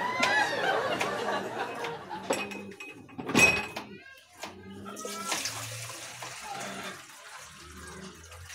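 A sharp knock a little past three seconds in. Then, from about five seconds in, water is poured from a plastic dipper into a metal cooking pot in a steady stream.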